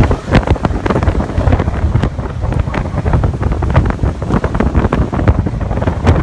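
Storm wind buffeting the microphone in heavy, irregular gusts on a ferry's deck in a rough sea.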